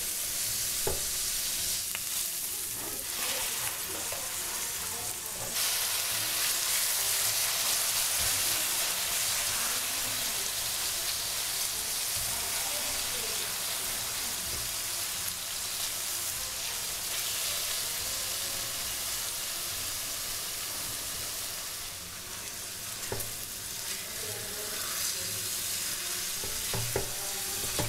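Onions and peppers sizzling in oil in a nonstick wok, stirred with a silicone spatula that now and then knocks against the pan. About five seconds in, the sizzle turns louder and brighter as marinated chicken pieces go into the hot pan, and the frying carries on under the stirring.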